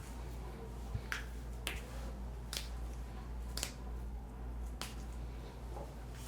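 A series of sharp clicks, six or so, spaced irregularly about a second apart, over a steady low hum.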